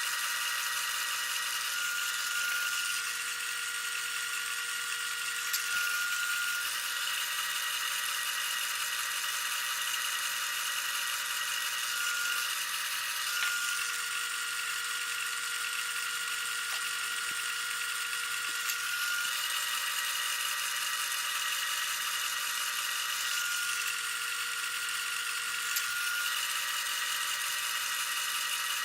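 Wood lathe running steadily, its motor giving a whine made of several high tones over a hiss. Some of the tones drop out and come back every few seconds.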